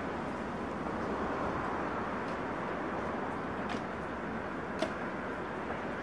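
Steady outdoor background noise, wind or distant traffic, with two faint knocks from a digging tool striking the ground, about two-thirds of the way in and near the end.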